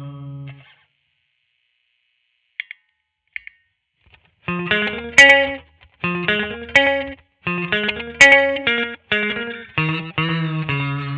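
Squier Vintage Modified Jaguar electric guitar played through an effects-laden amp. A chord rings out and stops about half a second in, followed by a few seconds of quiet with two faint clicks. Short, rhythmic strummed chord phrases start about four and a half seconds in.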